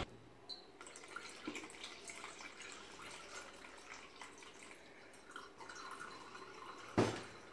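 Thin liquid poured from a steel pot through a small metal mesh strainer, trickling and dripping into a glass jug in a faint, irregular patter. One sharp knock near the end.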